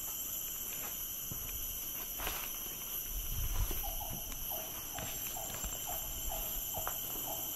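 Tropical forest ambience: a steady high-pitched insect drone, joined about halfway by a short animal call repeated about three times a second. Low thuds from footsteps and handling of the moving camera.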